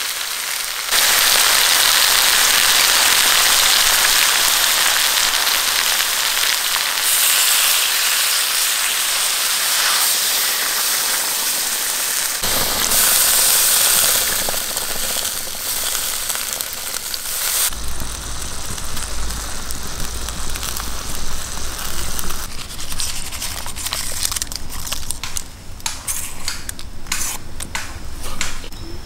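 Water poured into a steel wok of raw pork ribs and vegetables: a steady splashing hiss that deepens as the wok fills. In the later part a lower rumble with scattered clicks and taps.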